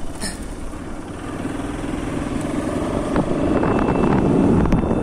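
Motorcycle engine running while the bike is ridden along a road, with a short click about a quarter second in and the sound growing louder in the second half.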